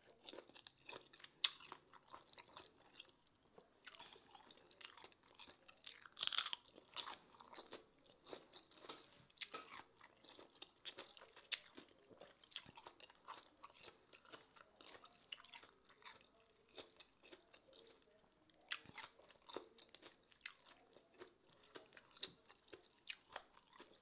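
Quiet close-up chewing of spicy seafood papaya salad eaten by hand: many small crunches and clicks, with a louder crunch about six seconds in.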